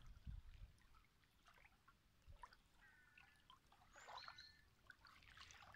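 Near silence with faint bird chirps: a short high call of a few quick notes about four seconds in, a thinner call just before it, and a few faint ticks.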